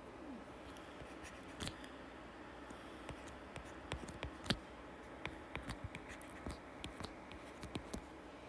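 Faint, irregular clicks and light scratching of a stylus on a tablet screen as an equation is handwritten.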